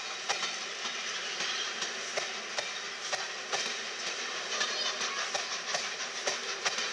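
The steam-hauled train of LNER Peppercorn A1 60163 Tornado rolling over station pointwork: a steady rushing rumble with irregular sharp clicks of wheels over the rail joints and crossings, two or three a second.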